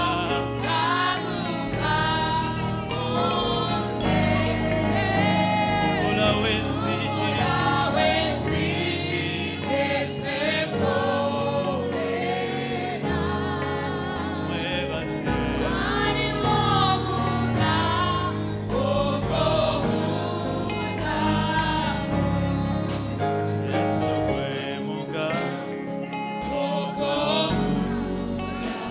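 Gospel worship music: voices singing a slow melody over sustained keyboard and bass accompaniment.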